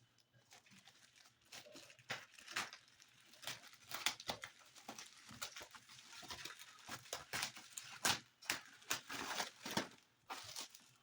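Packaging being handled and torn open during an unboxing: irregular rustling, crinkling and tearing with sharp clicks.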